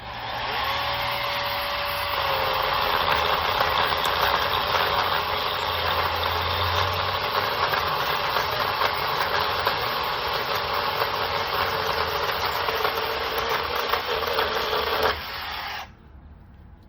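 Kobalt 24-volt brushless cordless chainsaw running and cutting through a branch about 4 to 5 inches thick, for about fifteen seconds, then stopping suddenly near the end.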